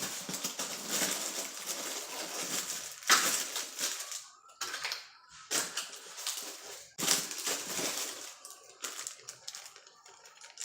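Plastic packaging crinkling and rustling as it is handled, in several irregular bursts.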